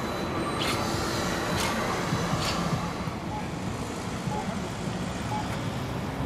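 Street traffic noise as an MBTA electric trolley bus passes, with a steady low rumble. A few short sharp ticks come about a second apart in the first half, and faint short beeps about a second apart follow near the end.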